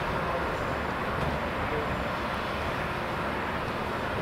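Steady, unbroken engine drone from the crane holding the suspended locomotive boiler, strongest in the low end, with no distinct knocks or clanks.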